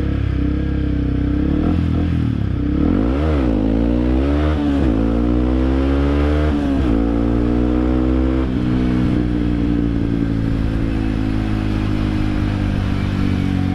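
Yamaha WR155's single-cylinder four-stroke engine breathing through an aftermarket RSS slip-on exhaust, revving hard under acceleration. About three seconds in, the revs climb steeply three times in quick succession, each climb cut off by a sudden drop in pitch like an upshift. For the second half it runs at a steady pitch.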